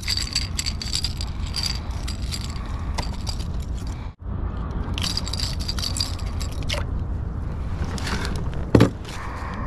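Metal clinking and rattling as long-nose pliers work the treble hooks of a yellow topwater plug loose from a striped bass's mouth, in two bursts, over a steady low rumble. A single sharp knock sounds near the end.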